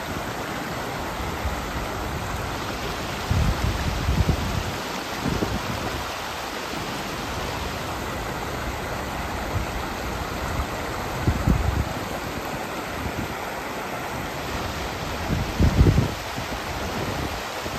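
Muddy flash-flood water rushing steadily through the debris in a constant wash of noise. A few low gusts of wind buffet the microphone, the strongest near the end.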